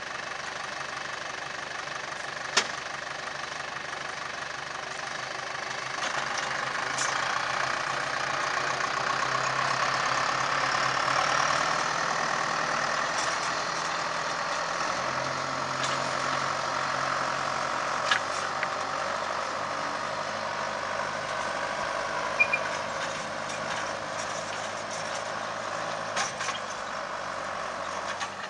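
John Deere tractor's diesel engine running steadily under load as it pulls a two-shank ripper through the soil, with a few sharp clicks along the way.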